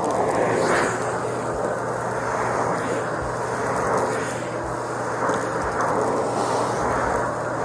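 Vacuum cleaner running steadily over the floor, its motor holding a constant hum while the rush of air swells and eases with each push and pull of the stroke.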